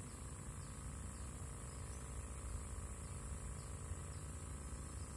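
Steady, high-pitched drone of insects, crickets or cicadas, with a few faint chirps, over a low steady rumble.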